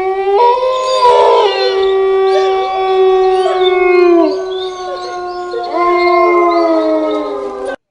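Several dogs or wolves howling at once: long drawn-out notes at different pitches overlap, with sliding calls rising and falling between them. It cuts off abruptly near the end.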